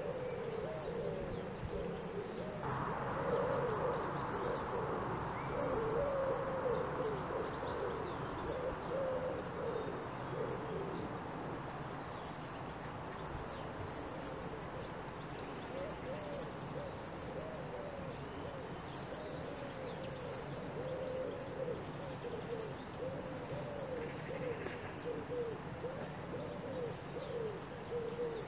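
Birds calling in a continuous run of low, wavering cooing notes, with faint high chirps from smaller birds. A soft hiss rises about three seconds in and fades out by about twelve seconds.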